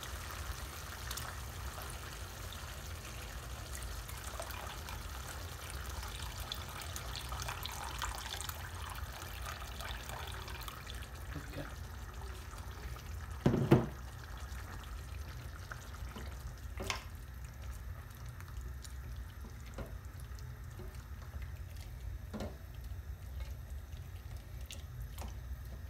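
Hot water poured from an electric kettle into a metal pan of lamb and onions, a steady splashing trickle over the first ten seconds or so. About halfway there is one loud knock, and later a few light clicks of a spatula against the pan as the stew is stirred.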